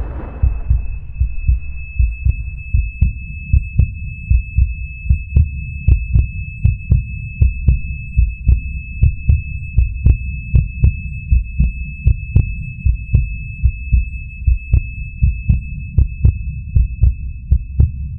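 Film sound effect of a heartbeat beating steadily under one continuous high-pitched ringing tone: the ear-ringing of a soldier stunned by a nearby blast.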